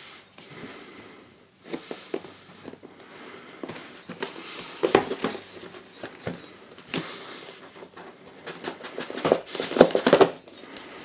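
A cardboard tablet box being handled on a table: it is turned over and its lid is worked loose, making irregular rubbing, scraping and light knocks, with some crinkling.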